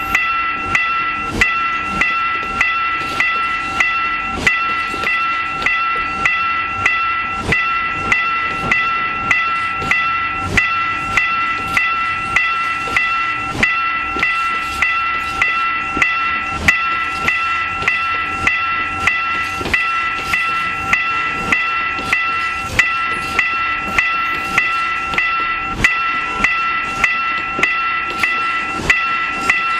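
Level-crossing warning bell dinging in a fast, even repeat over container freight wagons rolling past on the rails.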